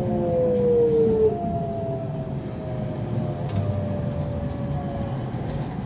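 Keikyu 600 series electric train heard from inside the car: the motor whine falls slowly in pitch as the train slows, over a steady rumble of wheels on track.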